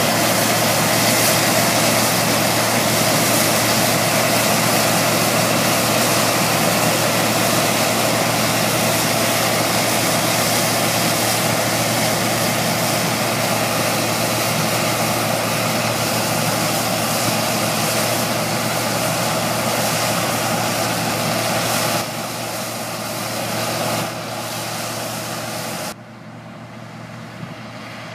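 New Holland 3550 AL combine harvester, with its six-cylinder Iveco/Fiat diesel, running steadily under load while threshing barley. It grows fainter in two steps near the end as the machine moves off up the field.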